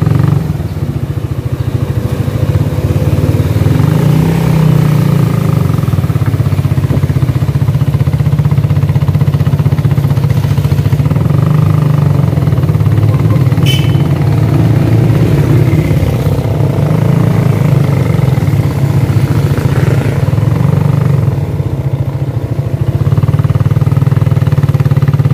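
Motorcycle engine running steadily at low road speed, heard from the rider's own bike, with a loud low hum that eases off briefly a couple of times.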